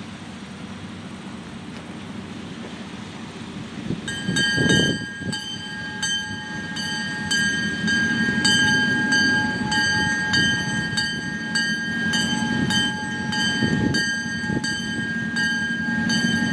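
Streamlined diesel locomotive approaching with a low, growing engine rumble. About four seconds in its bell starts ringing steadily, about two strokes a second.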